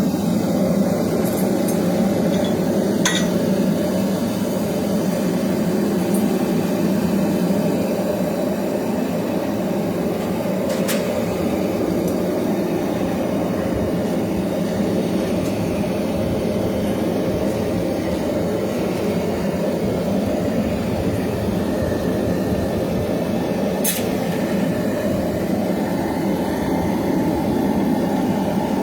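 Steady, loud running noise of knife-forging shop equipment, with three isolated sharp metallic clinks and no regular hammer blows.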